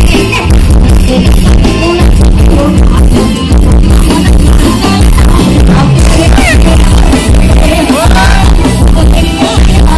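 Very loud music with a heavy bass beat blaring from the rear speaker wall of a Thai rot hae parade sound truck, heard close up.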